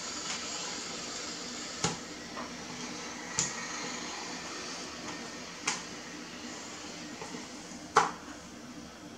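Four short, sharp taps and knocks from kitchen handling as beef liver is sliced with a knife over a plastic colander and the strips are laid on a wooden cutting board, the loudest near the end. A steady hum runs underneath.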